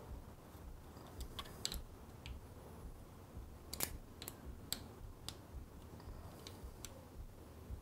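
Faint, scattered metallic clicks and ticks of a hex key working the mounting bolts of a motorcycle engine's oil sight glass as they are done up, the loudest click just before four seconds in.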